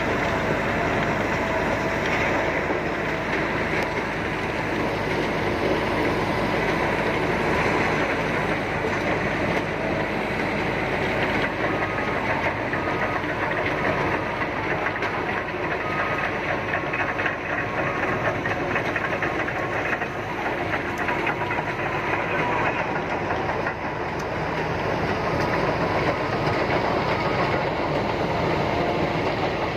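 Liebherr PR 745 crawler bulldozer running: a steady diesel engine note with continuous clatter of the steel tracks.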